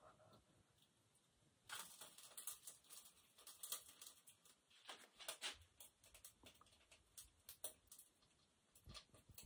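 Faint, irregular rustling and light clicks of something being handled, starting about two seconds in.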